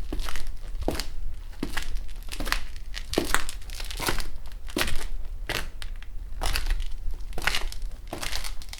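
Hard-heeled shoes walking at a steady pace on dusty concrete, each step a sharp heel strike with a gritty crunch of dust and grit underfoot, about one step every three-quarters of a second.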